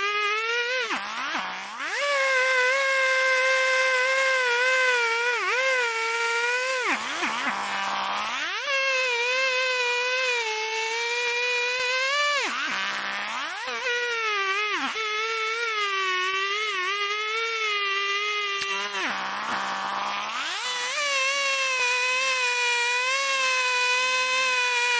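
Petrol chainsaw running at high revs as it cuts lengthwise down into the end of an upright log. The pitch holds high, then drops and climbs back up several times as the throttle is eased and reopened between cuts.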